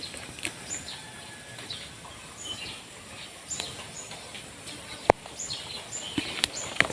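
Birds chirping intermittently over a low background hiss, with a sharp click about five seconds in and another near the end.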